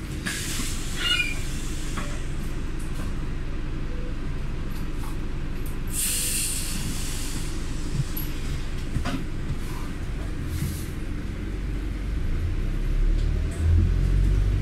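Steady low rumble of a running vehicle, with short hisses about a second in and about six seconds in, and a deeper hum growing louder near the end.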